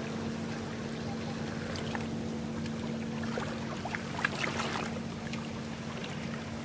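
Steady hum of a ship's engine on the river, with a scatter of faint crackling clicks about four to five seconds in.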